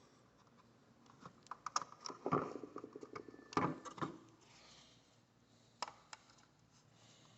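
Light plastic clicks and taps from a small locking peg being pushed into its hole in the top of a smoke detector, which locks the battery compartment shut. The clicks come in a quick string over a few seconds, with two louder knocks among them, then two more lone clicks near the end.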